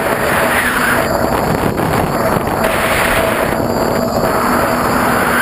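Quadcopter's motors and propellers heard from its onboard camera in flight: a loud, steady rushing whine, with wind on the microphone, its pitch rising and falling.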